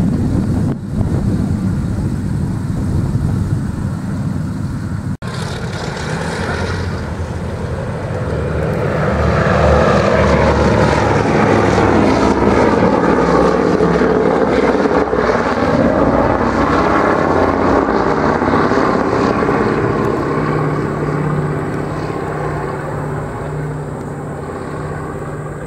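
Four radial engines of a B-24 Liberator running as it taxis. After a cut about five seconds in, the B-17 Flying Fortress "Nine O Nine" climbs out after take-off with its four Wright Cyclone radial engines. The propeller drone swells to its loudest as the bomber passes, its pitch shifting, then fades as it climbs away.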